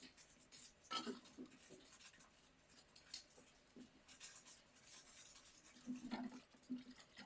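Near silence with faint scattered rustling and small clicks, a little louder about a second in and again around six seconds in.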